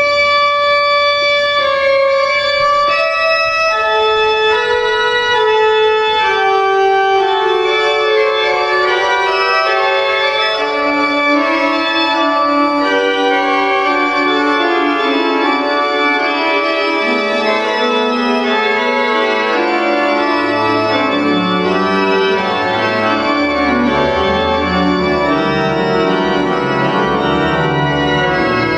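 Church pipe organ playing slow, sustained chords that move stepwise, with deep pedal notes joining about twenty seconds in.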